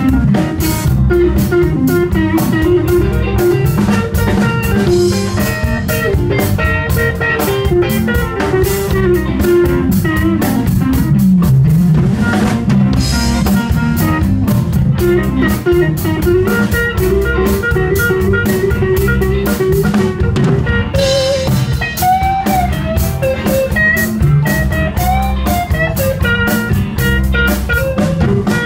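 Live blues band playing an instrumental passage: electric guitars over bass guitar and a drum kit, with no singing.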